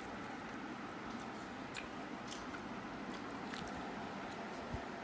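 A person eating pizza: a few faint clicks and smacks of biting and chewing over a steady background hum, with a soft low knock near the end.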